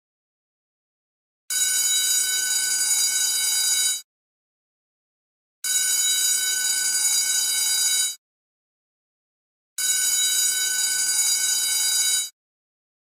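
School bell ringing in three bursts of about two and a half seconds each, with a second and a half of silence between them. Each ring is shrill and steady, and each starts and stops abruptly.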